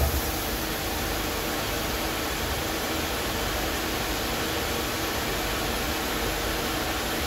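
Hanwha XP12S CNC Swiss-type lathe running: a steady, even hiss with a faint low hum underneath.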